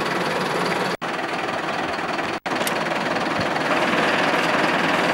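Steady engine noise of the truck-mounted crane running while it lifts the statue, cutting out sharply to silence twice, about one second and two and a half seconds in.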